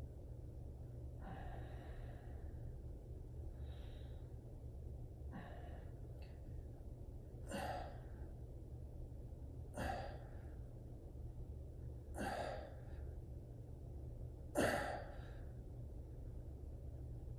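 A man's breathy exhales while curling a resistance band, one with each rep: softer at first, then sharp sudden puffs a little over two seconds apart, the loudest near the end. A steady low hum sits underneath.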